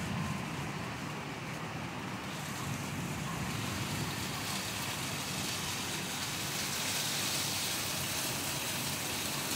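Heavy rain pouring steadily onto paving and foliage, a dense even hiss that grows sharper a few seconds in.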